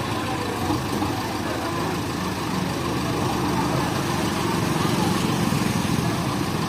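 JCB 3DX backhoe loader's diesel engine running steadily.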